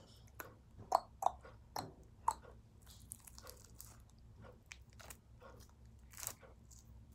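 Sticky gum-and-shaving-cream slime being pulled and squeezed between the hands, giving irregular sticky clicks and snaps, with a cluster of sharper snaps between about one and two seconds in.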